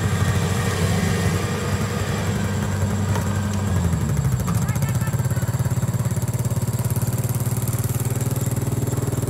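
Kubota DC-70 combine harvester's diesel engine running steadily under harvesting load. Its note drops a little about four seconds in, then settles into an even throb.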